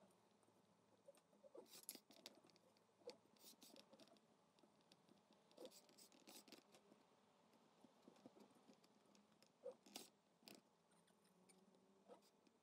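Faint, scattered taps and scrapes of small cucumbers being laid by hand into a three-litre glass jar, over near silence.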